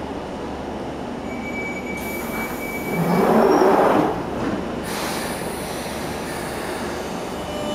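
London Underground Jubilee line 1996-stock train at the platform. A steady warning tone sounds about a second in, and a loud rush of noise follows around three seconds in as the doors close. The train then starts to pull away over a steady rumble.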